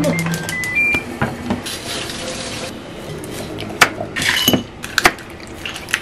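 Kitchen sounds: a short electronic beep about a second in, a stretch of hiss, then several sharp clinks of dishes and utensils.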